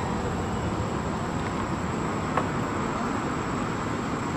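Steady roadside ambience: an even wash of traffic noise with a thin, high, steady insect buzz over it.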